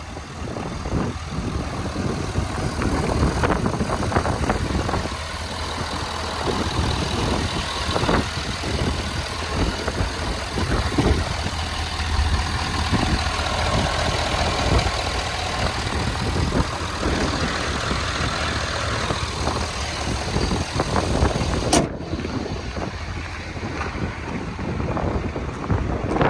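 2012 Ford F-350's 6.7-litre Power Stroke V8 turbodiesel idling steadily, with a single sharp click near the end.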